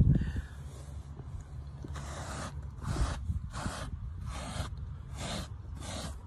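Lilly Brush Mini pet hair detailer scraped back and forth across car floor carpet, pulling up dog hair. From about two seconds in, a run of short scraping strokes about two a second.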